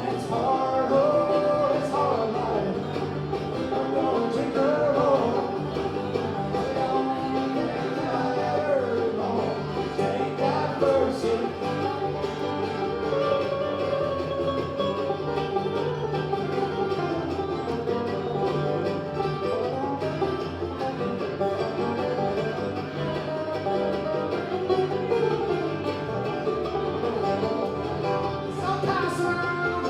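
Live bluegrass band playing, with banjo and guitar picking over a steady bass line.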